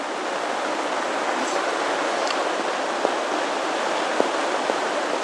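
Steady rain hiss, with a few faint ticks scattered through it.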